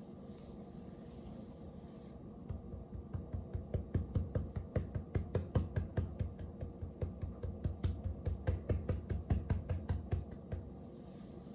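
Stretchy Vaseline-and-glue slime being squished and poked by hand, giving a quick run of sticky clicks and pops, about four or five a second, starting a couple of seconds in and stopping near the end.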